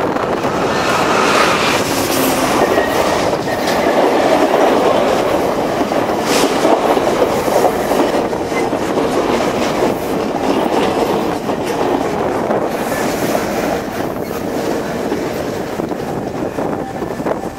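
VIA Rail passenger train passing close by: the GE P42DC diesel locomotive goes by, then a long string of stainless steel passenger cars rolls past with a steady rumble. The wheels give sharp clicks over the rail joints now and then.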